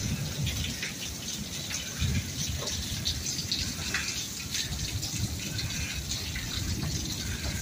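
Steady rain falling, with many close drips and small splashes. There is a low rumble underneath, loudest about two seconds in.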